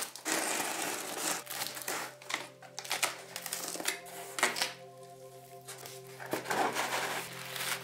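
Packing tape being slit and pulled on a cardboard box and the cardboard flaps folded open: a run of scraping, tearing and rustling noises, busiest in the first half, with another burst near the end. Soft background music with long held notes runs underneath.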